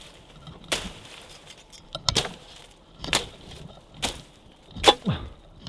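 Dry weeds and stalks being hacked with a hand saw: five sharp chopping strikes about a second apart, with faint rustling of brush between them.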